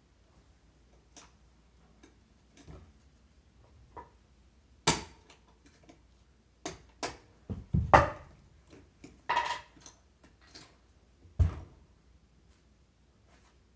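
Hard clicks and knocks of tools and wheelchair caster parts being handled, about a dozen spread irregularly, the loudest about five, eight and eleven seconds in.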